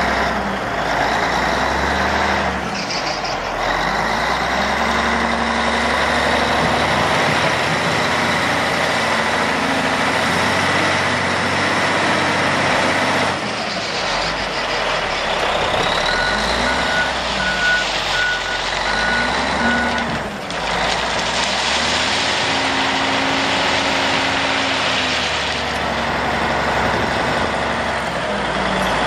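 1985 Caterpillar 980C wheel loader's diesel engine running and revving up and down repeatedly as the machine works. Partway through, its reversing alarm beeps about six times, roughly one and a half beeps a second.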